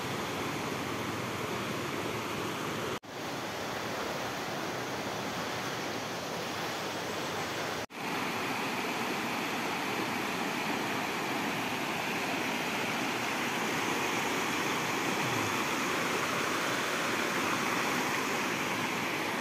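Shallow river rapids rushing over rocks in a steady hiss of water, a little louder in the second half. The sound drops out abruptly and very briefly twice, about three and eight seconds in.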